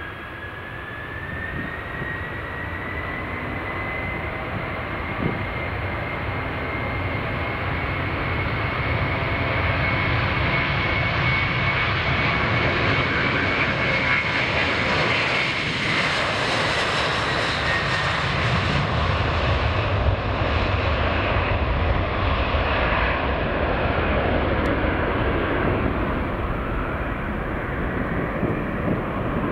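Boeing 747 jet engines passing close. The sound builds over the first ten seconds, with a high whine that climbs slightly in pitch in the first few seconds and then holds. The hiss is strongest a little past halfway, then eases off.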